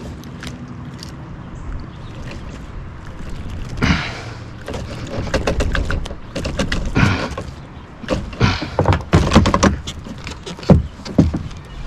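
Irregular knocks, clatter and water noise in a kayak as a hooked smallmouth bass is brought aboard and handled. The sharpest knocks come in a quick run near the end.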